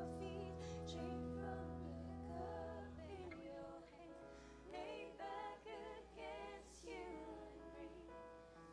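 A congregation singing a slow worship song quietly and faintly, over sustained low chords that stop about three seconds in.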